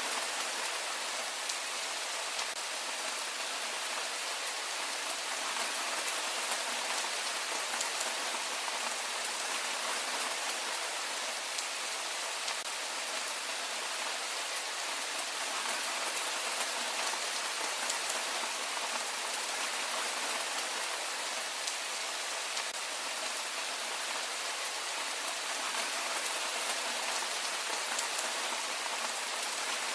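Heavy rain falling steadily, an even hiss of many fine drops pattering on surfaces, without a break.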